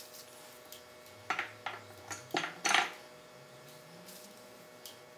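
Light clatter of kitchen things handled on a countertop: a short run of quick knocks and clinks starting about a second in, the loudest in the middle.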